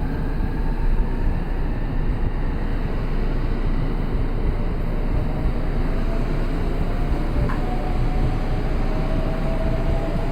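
Electric train running with a steady low rumble, and a faint motor whine that rises slightly in pitch near the end.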